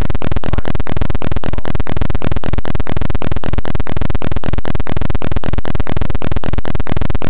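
Loud, even, rapid clicking, about seven clicks a second, with a faint steady tone underneath.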